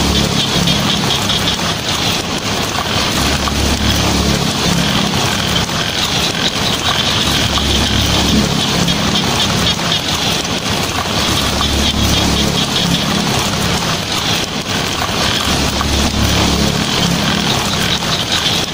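Heavy rain drumming steadily on a tin roof, a dense patter. A low rumble of thunder swells and fades several times underneath it.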